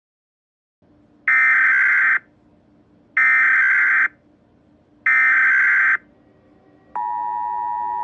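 Emergency Alert System SAME header: three loud bursts of screechy warbling data tones, each just under a second long with about a second's gap between them. About seven seconds in, the steady two-tone EAS attention signal starts.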